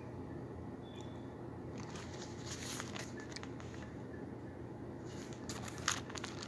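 Low steady room hiss with faint rustling, and one sharp click near the end.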